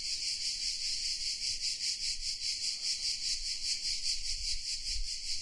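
Insect chorus of the hot-summer kind: a steady, high-pitched buzzing drone that pulses rapidly and evenly.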